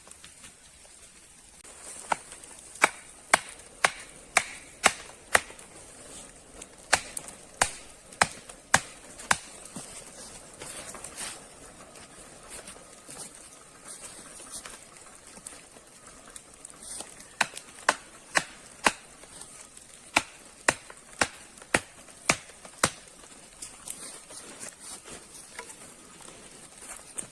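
Sharp knocks in runs of several strokes, about two a second, with pauses between the runs.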